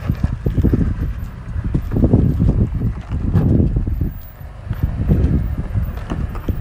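Gusty wind rumbling on the microphone in irregular surges, over a Toyota 4Runner crawling slowly up slickrock ledges, with scattered knocks and crunches from its tyres on rock.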